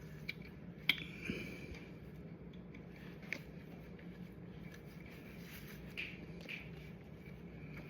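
A few faint clicks and light scraping from small metal parts being handled, as wire connectors are worked onto the oil pressure and neutral switch terminals of a motorcycle engine. A sharp click about a second in is the loudest, with another a little after three seconds, over a steady low hum.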